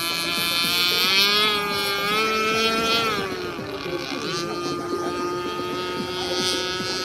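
Zenoah 30cc two-stroke engine of a gas-powered RC boat running at speed. Its pitch climbs slightly, drops back about three to four seconds in, then holds steady.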